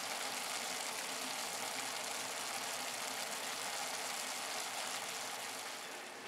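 Simmered kiriboshi daikon (dried radish strips with carrot) sizzling steadily in a frying pan as the last of its broth cooks away.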